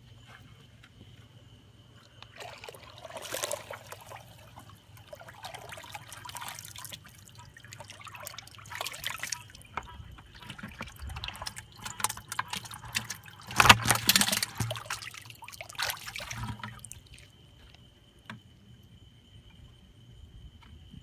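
Water splashing and pouring in irregular spells, loudest about two-thirds of the way through, as fish are released into a pond.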